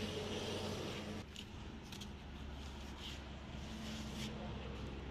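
A few faint rustles and taps from a small monkey clambering over coiled rope and plastic tubing, over a steady low background hum that drops lower about a second in.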